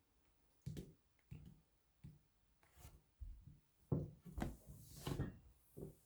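Writing on paper at a desk: irregular scratching strokes and soft bumps of the hand and paper against the wooden surface.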